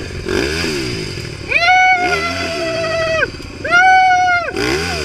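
Dirt bike engine revved hard twice, each time rising quickly to a held high pitch and then dropping off, the first for nearly two seconds and the second for about one. Another engine runs unevenly underneath. The bike is caught in thick brush and being revved to get it free.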